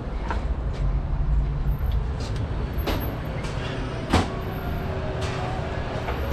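Low rumble of a car, heaviest in the first couple of seconds, with scattered clicks and one sharp knock about four seconds in.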